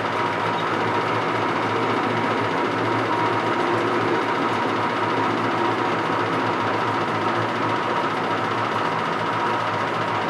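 Electric motor of a workshop machine tool running steadily, a constant whine over a low hum, as the machine runs while a mandrel is being made.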